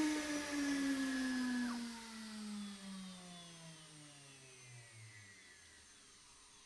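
CNCDepot S30C high-speed spindle spinning down from about 21,000 RPM after the cut: a falling whine that slides steadily lower in pitch and fades out over about five seconds.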